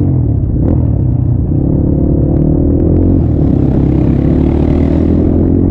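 Motorcycle engine running steadily at low speed, its note stepping up slightly about a second and a half in. A hiss swells over it about three seconds in and fades near the end.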